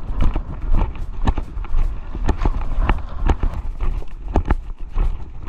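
Footsteps at a steady walking pace, about two steps a second, over a steady low rumble.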